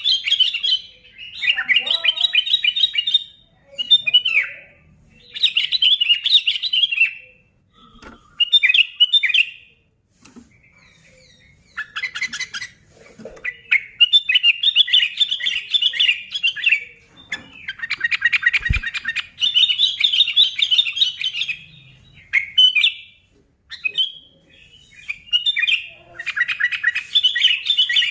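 Sooty-headed bulbul (kutilang) singing loud, fast chattering phrases about one to two seconds long, again and again with short pauses between, and one longer lull about a third of the way in.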